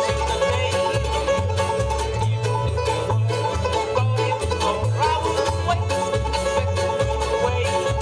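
Live bluegrass band playing an up-tempo tune: banjo rolls, mandolin and fiddle over acoustic guitar, with an upright double bass plucking a steady walking line.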